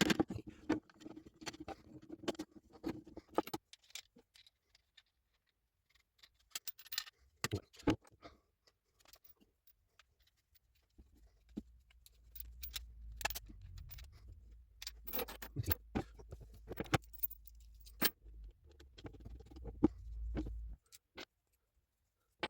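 Scattered light clicks and taps of small objects being handled. In the second half a low steady hum comes in under them and cuts off near the end.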